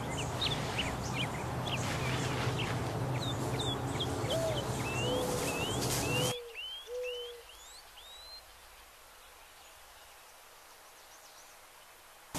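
Backyard birds chirping, many short rising chirps in quick succession, with a few low hooting calls in the middle. About six seconds in, the steady background hum cuts off abruptly and the rest is faint.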